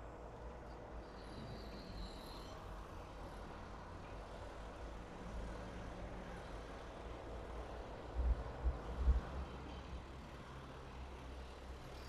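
Faint, steady low rumble of urban traffic, with a few short low thumps about eight to nine seconds in.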